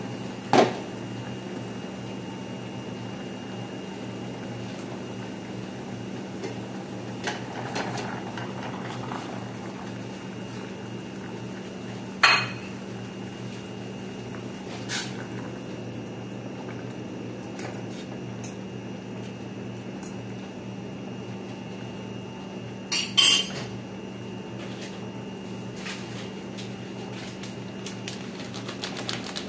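A handful of sharp metal clanks from a stainless steel cooking pot as its glass lid is lifted off and food is handled in it. The clanks are spread out, with a double clank a little past two-thirds of the way through, over a steady low hum.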